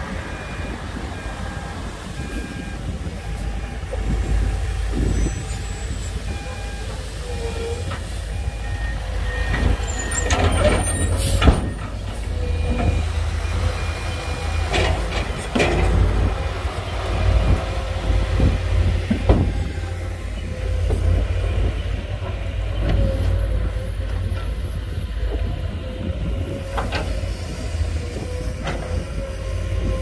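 Heavy diesel engine of a Hyundai Trago dump truck running steadily as the tipped bed unloads sand, with a few sharp knocks, the loudest about eleven seconds in.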